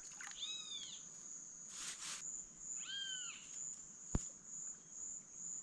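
Steady high-pitched insect trill throughout, with two short arching calls about half a second and three seconds in, a brief hissy splash-like burst about two seconds in, and a single sharp click near the end.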